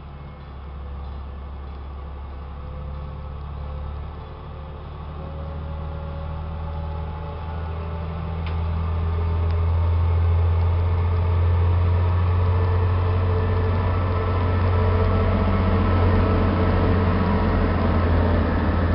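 Bombardier (ADtranz) class 220 diesel locomotive hauling a passenger train: a low engine drone that grows louder as it approaches and passes close by, its note rising a little as it pulls away under power. Near the end the rolling of the coaches' wheels on the track joins in.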